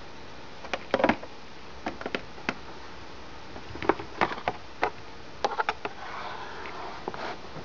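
Scattered light clicks and taps of handling close to the microphone, about a dozen at uneven intervals, with a soft rustle near the end. A faint steady hum runs underneath.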